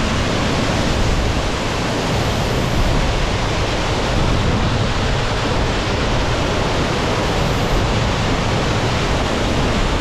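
Rainy-season waterfall in full flow, white water pouring down rock cascades in a loud, steady rush.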